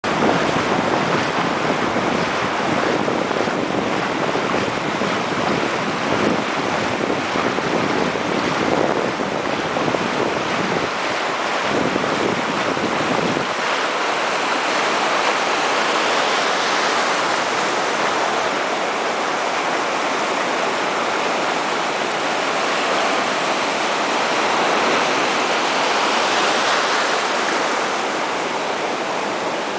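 Ocean surf breaking and washing up the beach, a steady rushing of water. Wind rumbles on the microphone for roughly the first half, then eases off.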